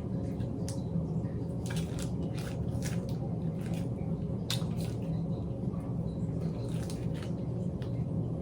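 Packaging being handled: scattered light clicks and plastic crackles over a steady low hum.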